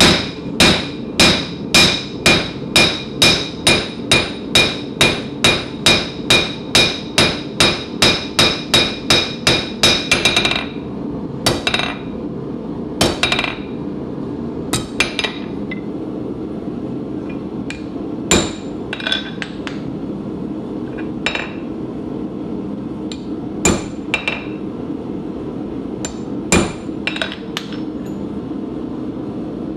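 Hammer blows on hot stainless steel on an anvil, each blow ringing. A fast even run of about two and a half blows a second for the first ten seconds, then single blows several seconds apart, over a steady background rumble.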